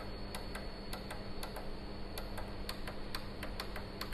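Rapid light clicking, about four to five clicks a second at uneven spacing, over a steady electrical hum.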